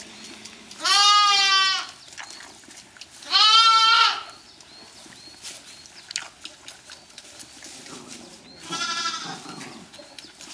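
Lambs bleating: two loud bleats about a second long in the first four seconds, then a fainter one near the end, with light rustling in straw between.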